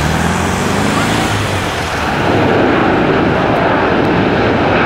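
McDonnell Douglas MD-11 trijet's three turbofan engines at takeoff power as the airliner lifts off and climbs away: a loud, steady jet rumble with a low hum rising in pitch in the first second, swelling louder about two seconds in.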